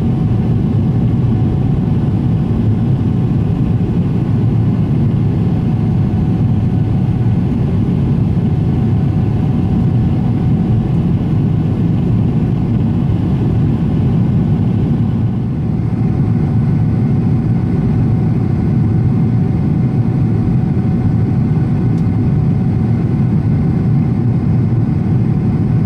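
Boeing 777-300ER cabin noise during the climb after takeoff: the steady low rumble of the GE90 engines and the airflow, heard from a window seat with a couple of faint steady tones above it. The hiss eases slightly a little over halfway through.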